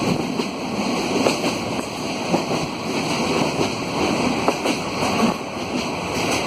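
Water rushing and splashing, a steady noise full of small crackles.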